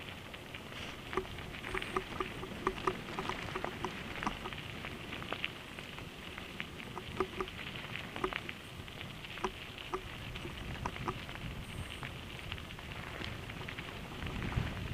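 Mountain bike rolling downhill on a gravel forest road: tyres crunching over loose stones, with many small clicks and rattles from stones and the bike, over a low wind rumble.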